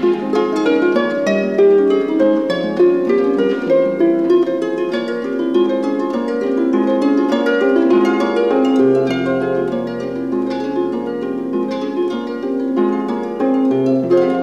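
Harp music: a quick, continuous flow of plucked notes, with a lower held note joining about nine seconds in.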